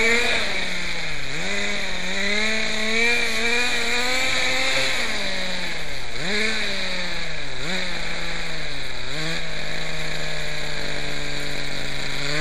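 Quickie 18 RC helicopter's glow (nitro) engine running. Its pitch surges and dips several times as the throttle is trimmed down toward idle, then it holds a steady lower note for the last few seconds. It will not hold its old low idle and needs the throttle a lot higher to keep running.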